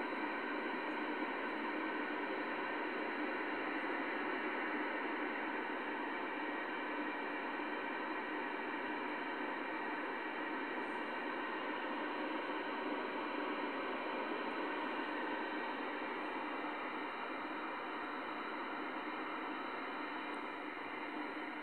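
Grundig CBH 2000 CB radio receiver hissing steadily through its loudspeaker on an empty channel with the squelch open: plain band noise with no station.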